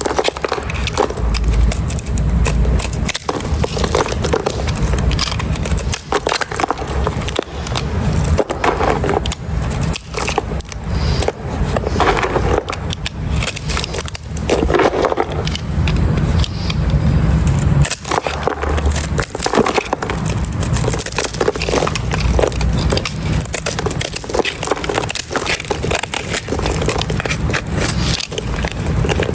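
Dry, crisp soap being scraped, a dense continuous crackling and crunching as shavings come away, in quick irregular strokes.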